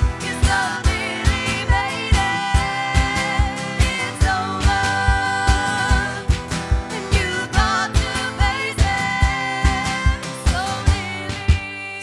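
Band playing a pop-rock song live, strummed guitar over a steady beat of about two low hits a second, with held, wavering sung notes and no clear words.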